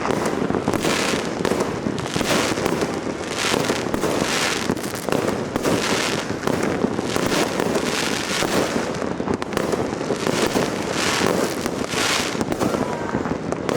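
Many fireworks and firecrackers going off at once, a dense, unbroken crackling packed with overlapping bangs.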